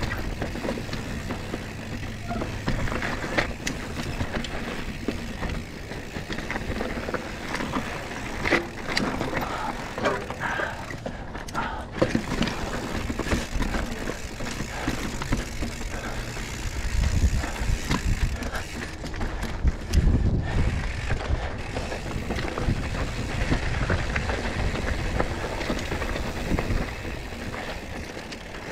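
Mountain bike being ridden over a rough trail: tyres rolling on dirt and rock, the bike rattling, and irregular knocks over bumps. A low rumble grows stronger around two-thirds of the way through.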